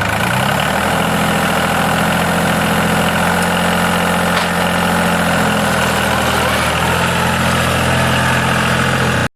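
Tractor engine running, its pitch rising over the first second and then holding steady. The sound stops abruptly near the end.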